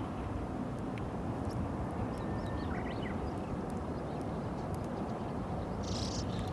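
Wind buffeting the microphone: a steady, rumbling low noise. A few faint high chirps come through about three seconds in.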